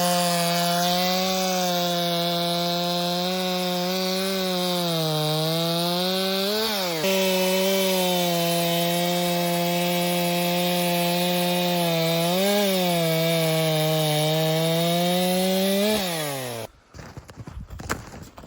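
Two-stroke chainsaw running at high revs while cutting into wood, its pitch sagging under load and picking up again. Near the end the engine winds down and stops.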